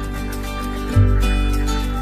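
Background music: gentle plucked-guitar instrumental with sustained notes and a bass note coming in about a second in.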